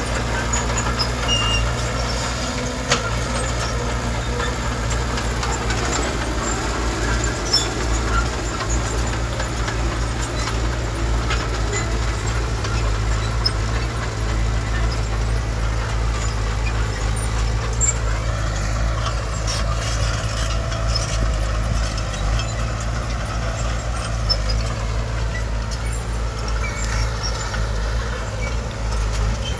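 Heavy diesel earthmoving machinery running steadily with a deep engine rumble, with a few sharp knocks along the way.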